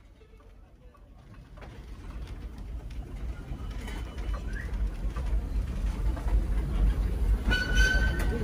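Steam road roller rumbling as it approaches and passes, growing steadily louder. A short high whistle sounds near the end.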